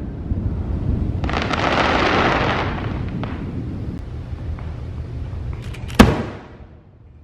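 Aerial fireworks going off: a steady low rumble of bursts, a spell of crackling about a second in, and one sharp loud bang about six seconds in that dies away.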